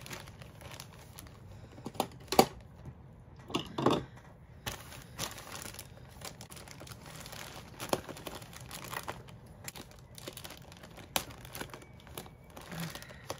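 Packaging crinkling and tearing as a parcel is unboxed by hand, with a few sharp clicks and knocks, the loudest about two seconds in.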